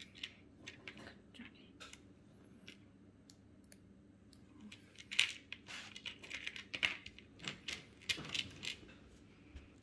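Small plastic LEGO pieces clicking and rattling as they are picked through and handled on a plastic baseplate: irregular light taps, busier in the second half.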